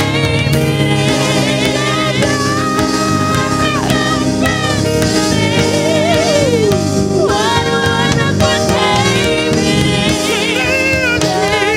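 Gospel worship music: a band with voices singing wordless, ad-libbed lines with vibrato over sustained chords.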